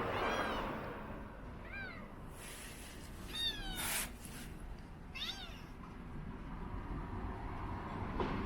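A domestic cat meowing four times, each meow rising and then falling in pitch, spaced a second and a half to two seconds apart. A brief sharp noise comes about four seconds in, right after the third meow.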